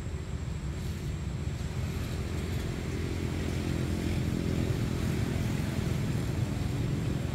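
Low, steady rumble of motor traffic on a nearby road, with an engine growing a little louder a few seconds in.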